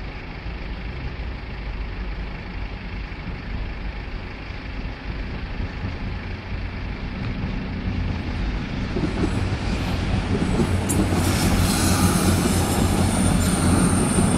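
CrossCountry Voyager diesel multiple unit approaching and running over the level crossing, growing steadily louder from about halfway in, with a low engine hum and a high thin whine near the end.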